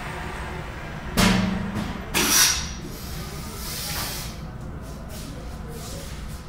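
Pneumatic drum lifter's valves venting compressed air: two short hisses about a second apart, the first with a low buzz, as the drum is set down and the gripper lets go.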